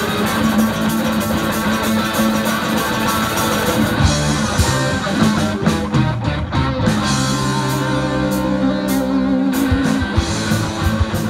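Live rock band playing an instrumental passage on electric guitars, bass guitar and drum kit, with no singing. About four seconds in the music moves into a new section, and sharp drum hits stand out near the end.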